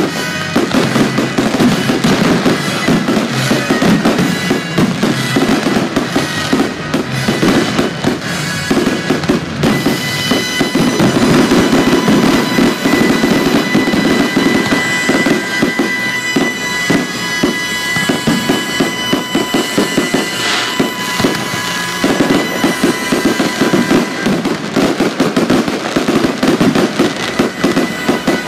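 Fireworks display: a dense, continuous run of aerial shell bursts and crackling, with music playing underneath.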